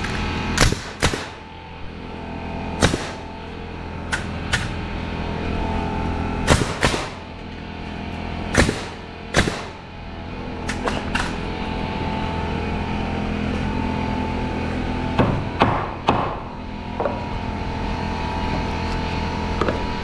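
Nails being driven into wooden wall blocking with a nail gun and a hammer: about a dozen sharp shots, many in quick pairs, as each block is toenailed to the studs.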